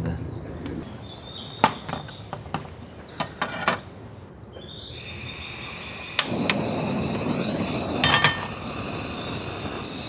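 Scattered sharp knocks and clicks of things being handled, likely camp breakfast gear being set out. From about halfway, a steady hiss and a high, steady insect drone come in, with a few more clicks over them.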